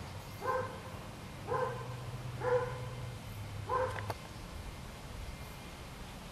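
A dog barking four times, short separate barks about a second apart.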